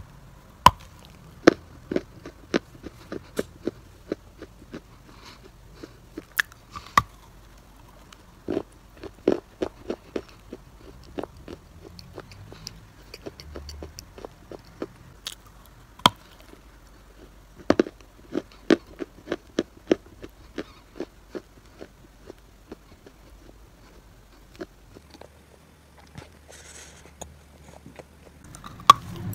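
A person biting and chewing a chunk of dry chalk clay close to the microphone: sharp, crisp crunches come in quick runs, then grow sparse over the last several seconds.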